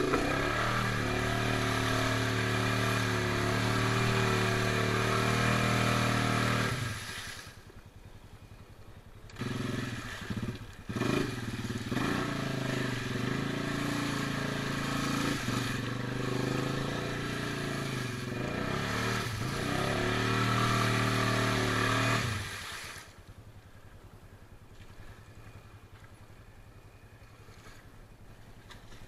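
2011 Honda Rincon 680's single-cylinder engine held at steady high revs for about seven seconds, then dropping to a low idle; after a couple of short blips it is held at high revs again for about ten seconds before dropping back to idle near the end. The ATV is stuck in swamp mud, its wheels being spun to work it free.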